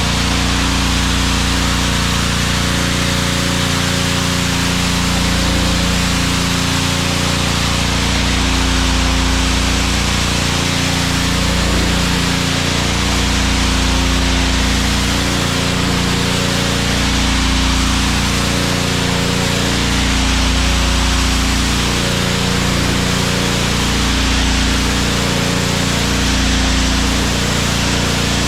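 Honda gas-engine pressure washer running steadily: a constant engine hum under the even hiss of the high-pressure water jet.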